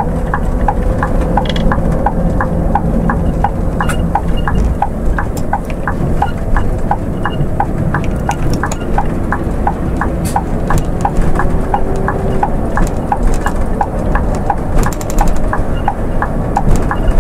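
Scania coach running at road speed, heard from inside the cab as a steady low engine and road rumble, with a light, even ticking about three times a second.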